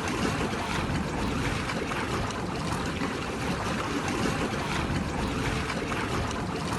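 Rushing water: a loud, steady roar of noise with no tones in it.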